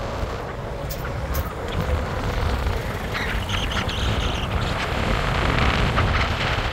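A moving vehicle: a steady rumble of engine and road noise, with a few short clicks and knocks.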